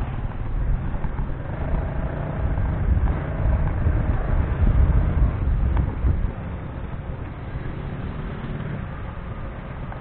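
Ride-along road noise heard from a motorcycle-mounted camera: a low, steady rumble of wind and engine that drops off suddenly about six seconds in as the bike slows into queued traffic.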